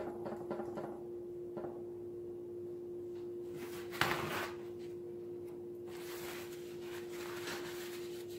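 Light handling noises at a work table: a single knock about four seconds in, then a stretch of rustling, over a steady low hum.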